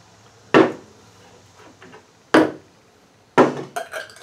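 Three sharp knocks, the last two about a second apart: filled glass mason jars being set down on the tabletop.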